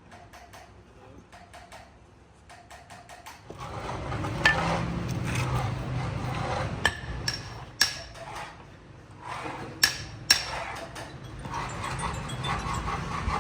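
Metal workshop sounds: light clicking taps, then a machine starts up with a steady low hum, and several sharp metal knocks ring out over it.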